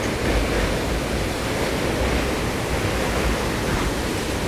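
Steady rushing noise from the open door of a moving train on a river bridge: wind on the microphone mixed with the train's running rumble.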